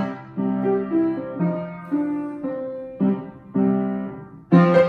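Piano playing a jazzy beginner piece: a softer passage of separate chords and notes, each struck and left to fade, then a louder phrase coming in near the end.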